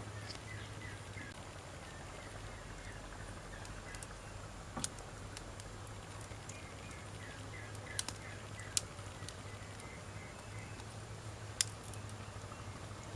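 Wood campfire burning, crackling with several sharp pops, about four of them loud, over a steady low hum, with faint high chirping in the background.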